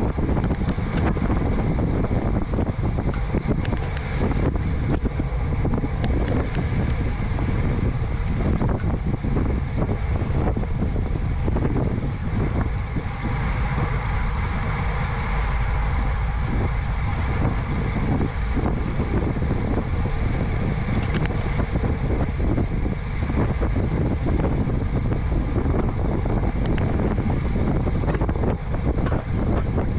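Steady wind noise buffeting an action camera's microphone on a road bike riding at about 20 to 27 mph, a dense low rumble with no pauses.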